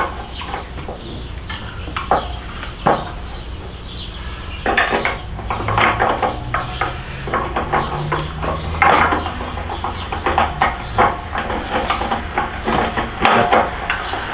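Irregular metallic clinks and clanks of hand tools, bolts and steel motorcycle crash-bar parts being handled and fitted, sparse at first and busier from about a third of the way in, over a low steady hum.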